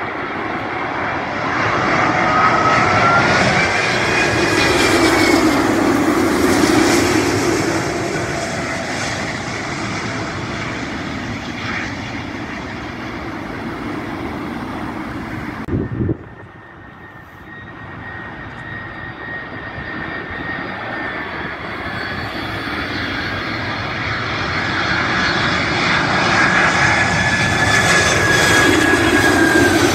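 Jet engines of a British Airways Airbus A380-841 on landing approach: the noise swells to a peak with a whine that rises and falls in pitch, then fades as the jet settles onto the runway. After a sudden cut about halfway, a DHL Boeing 767-300 freighter's engines build up again on approach, loudest near the end, with a steady whine.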